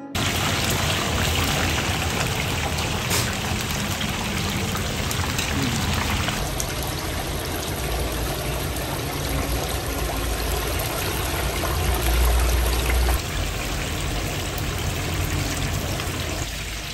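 Hot oil sizzling and bubbling hard as whole chickens deep-fry in a large stainless steel pot.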